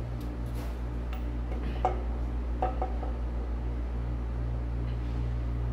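Two sharp metal clinks with a short ring, about two seconds in and again just under a second later, as a cast Jacobs engine brake housing is set down onto the rocker assembly of a Caterpillar 3406B cylinder head, over a steady low hum.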